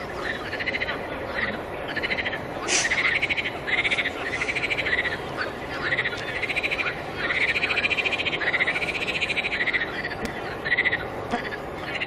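A chorus of frogs calling: short, pulsed croaks repeated over and over, several overlapping, over a steady background hiss. A brief high chirp about three seconds in.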